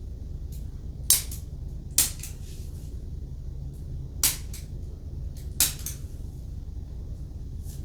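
Chiropractic adjusting tool firing against the foot: four sharp clicks a second or two apart, each followed closely by a fainter click, over a steady low hum.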